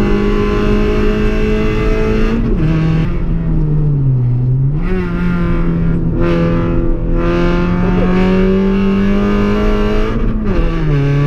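Car engine running hard on a race circuit. Its steady high note drops about two seconds in, sags lower, then climbs gradually under throttle for several seconds before dropping sharply again near the end.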